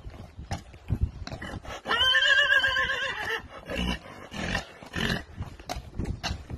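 A horse whinnies once, about two seconds in, a wavering call lasting about a second and a half, over the steady clopping of shod hooves walking on tarmac.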